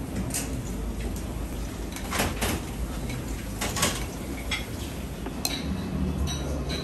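Dishes and utensils clattering in a restaurant kitchen, a handful of sharp clinks spread across the few seconds, over a low steady rumble.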